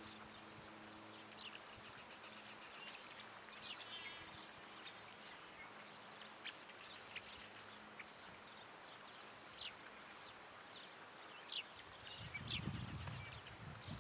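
Faint outdoor ambience of wild birds: scattered short, high chirps and a few quick trills over a soft steady hiss, with a brief low rush near the end.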